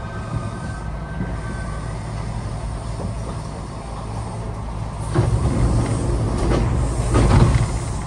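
Running sound inside a Kintetsu 1620 series electric train car: a steady rumble of wheels on rail with a faint steady whine at first. About five seconds in it grows louder with a run of clattering as the wheels pass over track joints.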